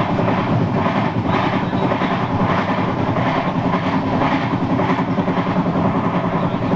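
Passenger train running at about 105 km/h: a steady rumble of wheels on rail with a quick, regular clatter.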